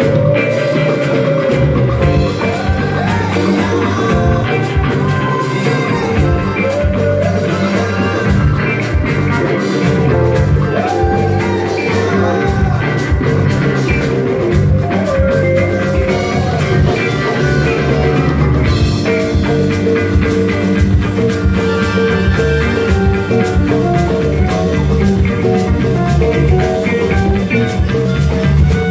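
Live band playing a rock jam: electric guitars over a drum kit and hand-played bongos, with a lead melody bending up and down in pitch.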